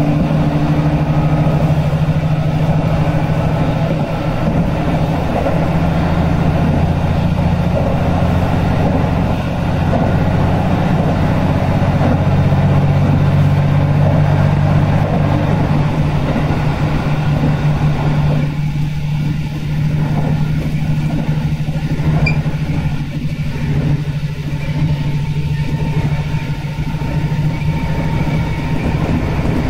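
Train running along the line: a steady low engine drone under wheel-and-rail running noise. About two-thirds of the way through, the running noise eases and the drone carries on.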